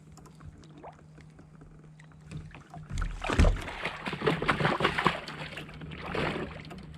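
A large catfish thrashing and splashing water at a kayak. A quick flurry of splashes and knocks starts about two seconds in, peaks in the middle and dies away near the end.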